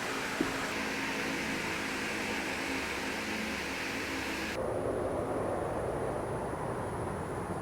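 Steady mechanical whirring with a low hum, which changes abruptly a little over halfway through to a steady rushing noise.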